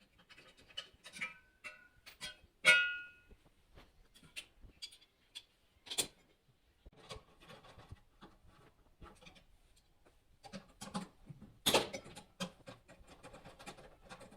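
Scattered clicks and knocks of washing-machine parts and tools being handled. There is a short metallic clink that rings briefly about three seconds in, and another sharp knock near the end.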